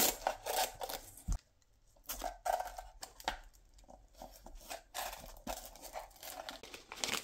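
Hands fitting a LiPo battery pack and its wires into a small wooden RC boat hull: irregular rustling, crinkling and light clicks of the pack, leads and connectors being handled, with a soft thump a little over a second in and a short pause after it.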